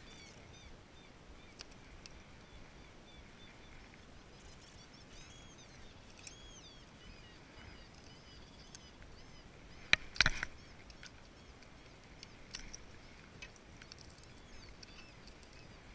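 Calm outdoor quiet with a small songbird singing short arched chirps near the start and again between about four and seven seconds in. A couple of sharp clicks about ten seconds in are the loudest sounds.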